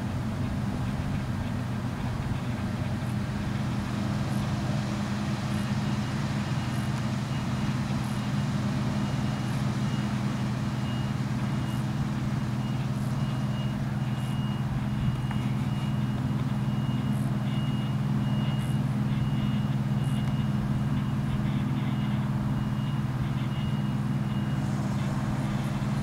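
Claas Lexion 740 combine harvester running steadily under load while cutting wheat, a steady low engine drone. A faint high-pitched pulsing tone sounds through the middle.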